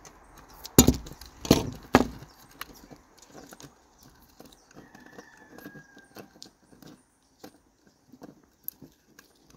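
Three sharp knocks within about the first two seconds as scissors and a roll of electrical tape are handled and put down on a wooden table, followed by faint light clicks and handling noise of fingers working a thin wire.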